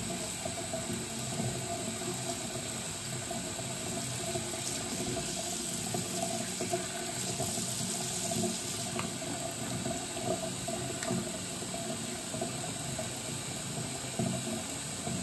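Tap water running steadily from a faucet, its stream pouring into water in a basin.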